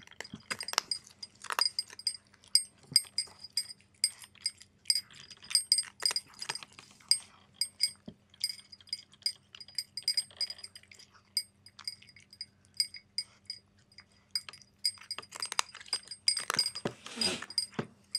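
A cat crunching dry kibble from a ceramic bowl, a dense run of small crunches and clinks that ring at the same high pitch, busiest near the end.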